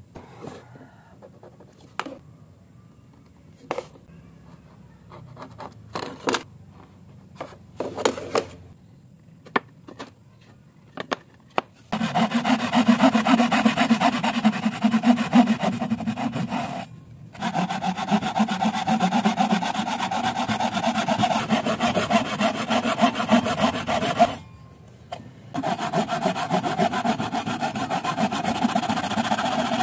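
Light taps and clicks of a pencil and square on a wooden board while a joint is marked out. About twelve seconds in, a power saw starts cutting into the wood with a steady whine, and drops out briefly twice.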